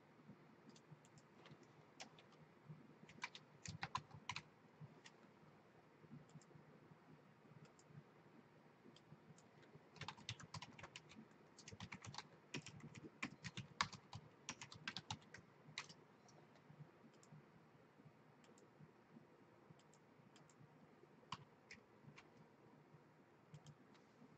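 Faint typing on a computer keyboard: scattered key clicks, a short run about three seconds in and a longer, denser run from about ten to sixteen seconds in, with a few single clicks in between.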